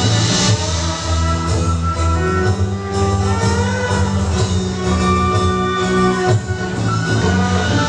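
Instrumental music with plucked strings and held melody notes over a steady low bass.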